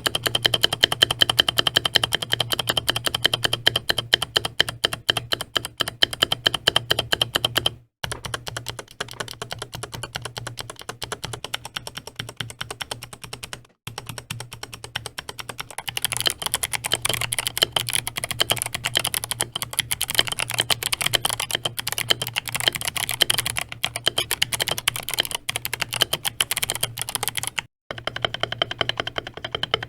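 Fast typing on a custom 60% mechanical keyboard with an aluminium case and MT3 keycaps: a dense run of key clacks, cut into several clips with brief gaps between them. Its builder finds the overall sound a little hollow.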